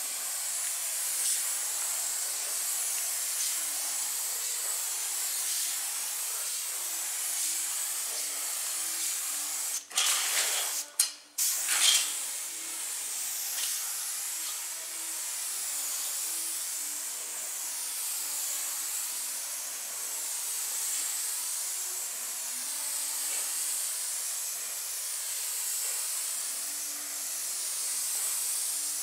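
Compressed-air spray gun spraying U-POL Raptor bedliner coating: a steady hiss, with a louder stretch of hiss about ten seconds in that stops and starts several times over two seconds.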